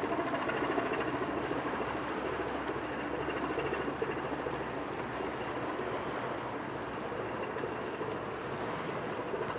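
Diesel engine of a coastal cargo ship passing close by, a steady mechanical drone mixed with the rush of its wash, fading slightly.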